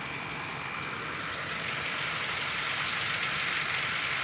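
Truck engines idling in stopped traffic: a steady mechanical drone that grows louder about a second and a half in.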